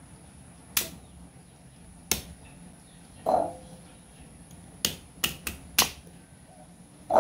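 Kitchen knife cutting a raw peeled sweet potato on a wooden cutting board: sharp knocks of the blade meeting the board, a few spaced out at first, then four in quick succession about five seconds in, with one duller thump in between.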